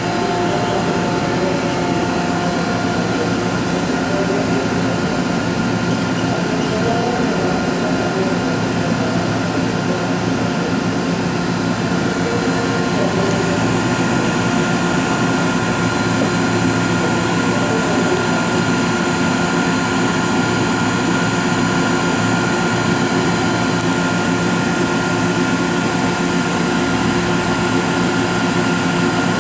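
Later-type MH3096-1600S screw air compressor of a 209-series-family electric train running steadily, a vacuum-cleaner-like whine made of several steady tones over a rushing hiss.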